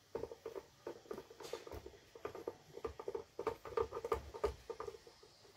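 Screwdriver turning screws into a mixer grinder's plastic motor base as it is closed up: a run of light, irregular clicks and scrapes.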